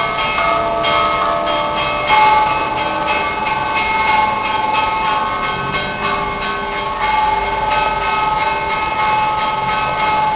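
Church bells ringing together in an Orthodox-style peal: quick, repeated strikes on smaller bells over longer ringing tones from bells of several different pitches.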